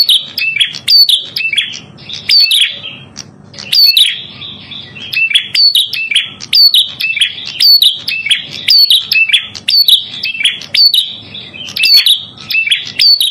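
A prenjak kepala merah songbird singing a fast, repeated run of sharp, high chirps, about two a second, with a brief break about three seconds in.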